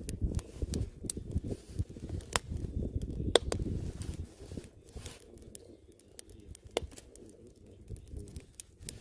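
Wood campfire crackling, with irregular sharp pops over a low rumble that fades about four seconds in.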